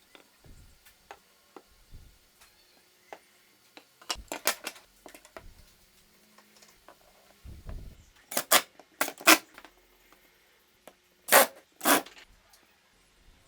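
Handling noises: scattered light clicks and knocks, a low thud, then louder sharp strikes in two pairs in the second half.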